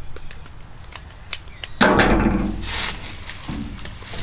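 Scissors clicking as strips of pipe-wrap tape are snipped and handled, then, about two seconds in, a louder rustling crackle of the tape being worked.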